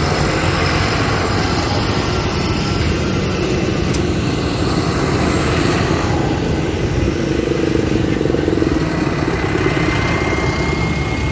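Tractor engines running as tractors drive past, a loud, steady rumble, with a faint thin whine rising in over the last couple of seconds.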